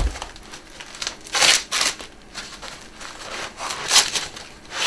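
Packing material around a 3D printer's build plate being handled and unwrapped: a sharp knock at the start, then several short rustling, crinkling bursts.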